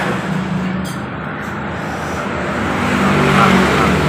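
Road traffic with a motor vehicle's engine running close by, a steady low drone that grows louder over the last second or so.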